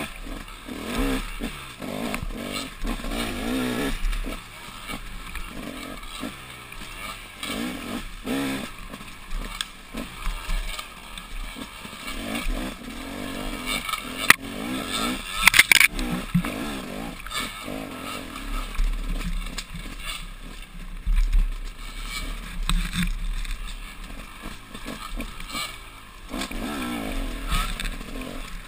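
Dirt bike engine heard on board while riding a rough forest trail, revving up and down with the throttle. Knocks and scrapes come from the rough ground and brush, with a sharp crack about fourteen seconds in and a louder clatter just after.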